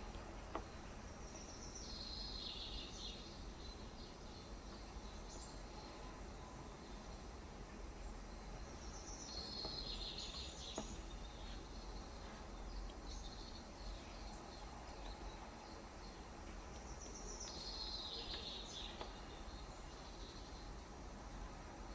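A bird outside giving the same short call three times, about eight seconds apart, each about a second long and falling in pitch, faint over a steady background hiss.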